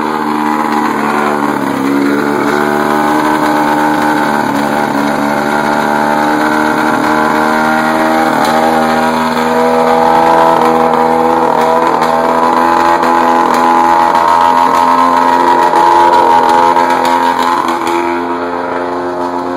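Carbureted 115 hp Mercury outboard motor running at fast idle just after a cold start, fed by garden-hose flushing water. Its speed wavers slightly, running a little louder in the second half before easing off near the end.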